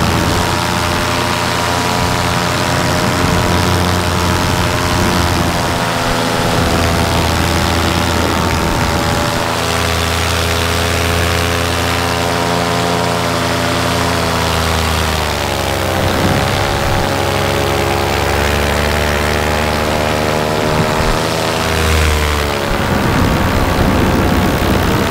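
Paramotor's Vittorazi Moster 185 two-stroke engine and propeller running at steady cruise power in flight, with wind rush over it. The engine pitch sags briefly about fifteen seconds in and again near the end, then climbs back each time as the throttle is eased and reapplied.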